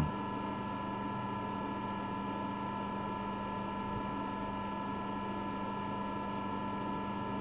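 Steady machine hum in a metalworking shop, a constant drone with several fixed tones that does not change.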